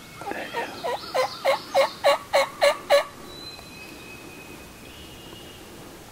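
A run of about ten turkey yelps, roughly three a second, growing louder over about three seconds and then stopping. Faint high songbird notes follow.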